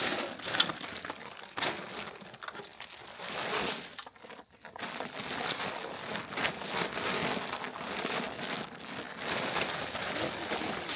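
Continuous crinkling and rustling with scattered sharp clicks, like a feed sack being handled and emptied into a deer feeder's hopper.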